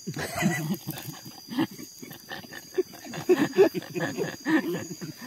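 Close-up mouth sounds of someone eating a hot fish head with rice by hand: irregular wet smacking and chewing clicks with short low grunts.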